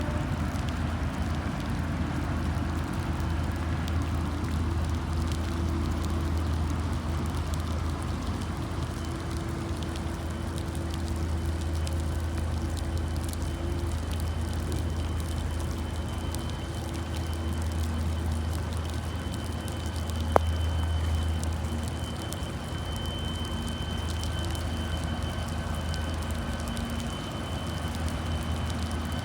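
Lake freighter's engines running with a steady low rumble as the ship moves through the canal, mixed with rain pattering. A single sharp click about twenty seconds in.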